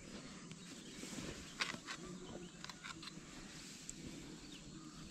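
Quiet open-air background with faint small chirping calls, and a handful of short clicks and rustles from hands baiting a fishing hook close by, about one and a half to three seconds in.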